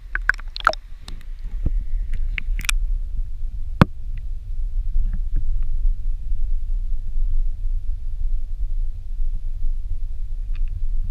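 Water splashing and sharp knocks against the camera's waterproof housing as it goes under the surface, several in the first four seconds. After that there is a steady low underwater rumble.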